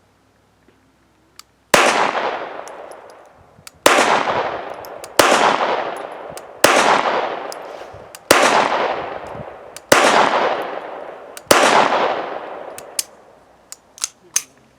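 Seven shots from a Beretta 21A Bobcat .22 LR pocket pistol firing CCI Stinger 32-grain hollow points, one every one to two seconds, each trailing off slowly; every round cycles the slide without a jam. A few faint clicks near the end.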